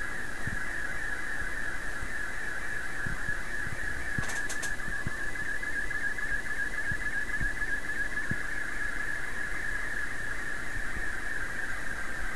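Slow-scan television (SSTV) picture signal in Scottie S2 mode, received on the 20-metre band through a Kenwood TS-2000: a continuous warbling tone that wavers rapidly within a narrow pitch range, the sound of image lines being sent.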